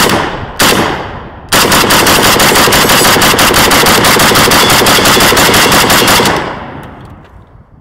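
Riley Defense Krink, an AKS-74U-pattern rifle in 7.62x39 firing Tula ammunition: two single shots, then from about a second and a half in a fast, unbroken string of shots lasting nearly five seconds, with the echo tailing off. The rifle cycles through the magazine without a stoppage.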